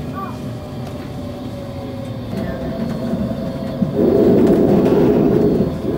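Bombardier Incentro tram running on street track, heard from the driver's cab: a steady rolling and motor hum with a faint steady whine. About four seconds in it gets clearly louder for a little under two seconds, then drops back.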